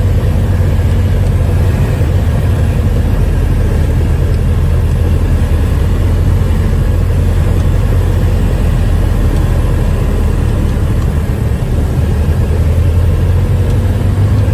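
Piston engine and propeller of a light single-engine airplane running steadily in flight, heard from inside the cockpit as a constant low drone.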